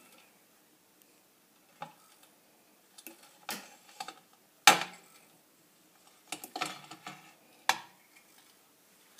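Irregular sharp metallic knocks and clatter from a brass Eureka clock movement being handled, with the loudest knock about halfway through and a cluster of smaller clicks near the end.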